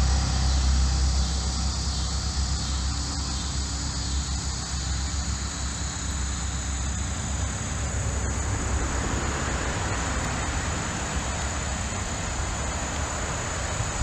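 Steady rumble and tyre hiss of traffic on a four-lane highway bridge overhead, heard from beneath the concrete deck; the low rumble is heaviest in the first second or so, then evens out.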